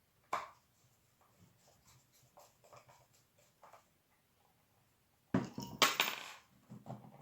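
Small metal bolts and a hand tool being handled while fitting a melodeon keyboard: a single sharp click, a few faint ticks, then a louder clatter and scraping about five and a half seconds in, followed by a few light knocks.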